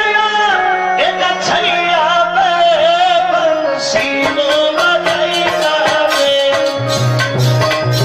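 Live devotional badhai music celebrating Krishna's birth: a keyboard melody over held notes with a wavering lead line, joined by steady drumming about halfway through.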